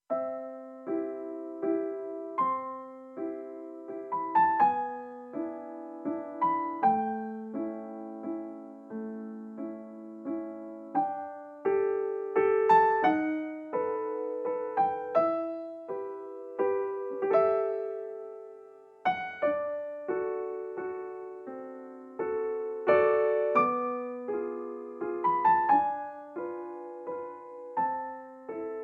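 Background piano music: a gentle melody of single struck notes and chords, each note ringing and fading.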